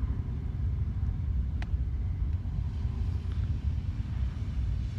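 Steady low background rumble, with a single faint click about one and a half seconds in.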